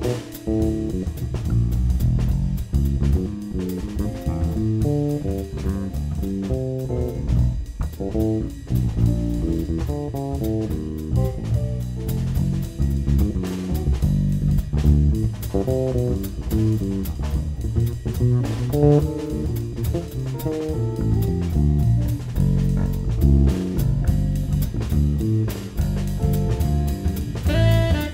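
Small jazz band playing an instrumental: electric guitar carrying a melodic line over electric bass and a drum kit. Tenor saxophone comes in right at the end.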